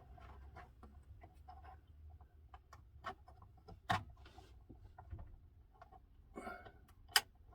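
Light taps, clicks and rubbing of hands handling a clear plexiglass guard stuck over a refrigerator's control buttons, with a sharper click about four seconds in and a louder one near the end.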